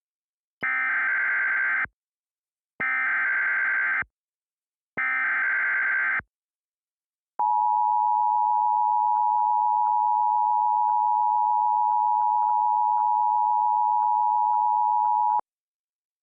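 Emergency Alert System SAME header: three identical bursts of screeching digital data, each just over a second long, followed by the EAS two-tone attention signal (853 and 960 Hz together), a steady harsh dual tone held for about eight seconds that cuts off abruptly. Together they mark the start of an alert, here a National Weather Service severe thunderstorm warning.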